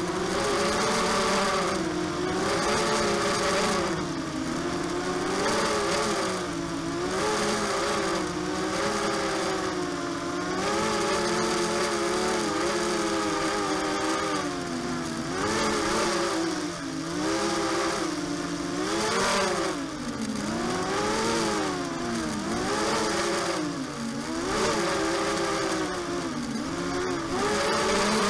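ZMR250 mini quadcopter's four DYS BE1806 brushless motors and propellers whining. The pitch rises and falls over and over as the throttle changes in flight.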